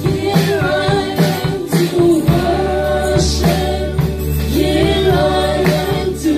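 A woman singing a gospel song into a microphone, holding notes and sliding between them, over electric keyboard accompaniment with a steady beat.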